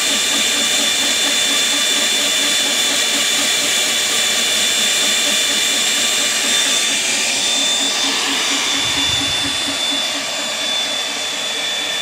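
Portable line boring machine cutting through the ductile-iron boom pivot bore of a Cat 416C backhoe under a heavy feed, set hard to keep chatter out. Its drive motor whines steadily with a fast rhythmic pulsing as the bar turns, and the cut is running smoothly.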